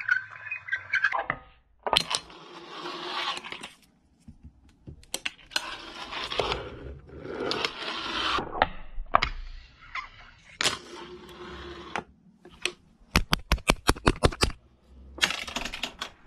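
Fingerboard wheels rolling across hard desk-park surfaces, broken by sharp clacks of the deck popping and landing. A quick run of about a dozen clicks comes near the end.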